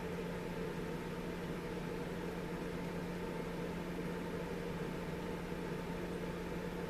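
Steady background hum of a running fan or small motor, with a constant low tone and no change in level.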